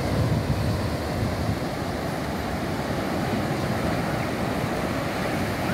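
Ocean surf breaking and washing up a flat sandy beach: a steady rushing noise.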